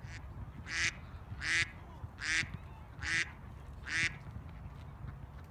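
Mallard duck quacking in a steady series of about six harsh quacks, evenly spaced under a second apart, the first one faint.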